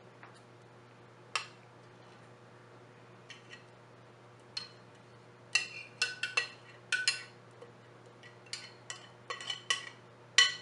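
A utensil clinking against glass dishes as marinated chicken and sauce are emptied into a glass Pyrex baking dish. A few scattered clinks at first, then quick runs of ringing clinks from about halfway, with one loud clink near the end.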